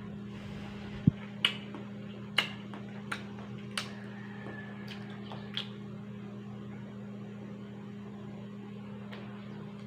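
A person biting and chewing a juicy slice of orange-fleshed melon: a handful of sharp wet mouth clicks and smacks in the first six seconds, the loudest about a second in, over a steady low hum.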